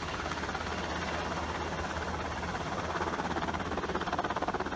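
Helicopter hovering overhead, its main rotor beating with a steady, rapid chop over a constant engine hum, while it carries a slung water bucket.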